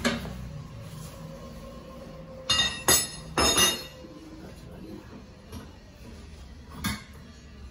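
Stainless steel bowl and wire bowl guard of a 20 L planetary mixer clanking and rattling as they are handled and fitted. There are several ringing metal knocks about two and a half to four seconds in and another near the end.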